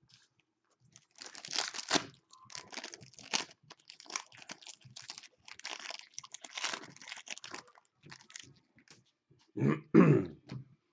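Foil trading-card pack wrappers crinkling and tearing as packs are opened by hand, with the cards shuffled between them. Near the end there is a brief, louder sound.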